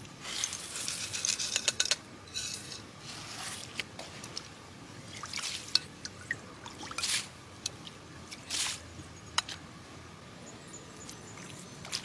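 Water sloshing and trickling in short bursts, followed by scattered sharp clicks and splashes.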